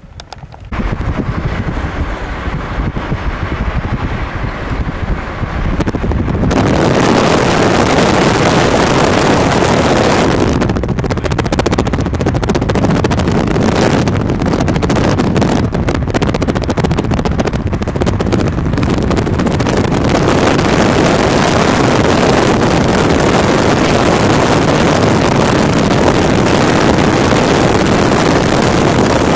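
Wind rushing over the microphone with the noise of a moving vehicle. It starts abruptly about a second in and grows fuller and louder about six seconds in, then stays steady.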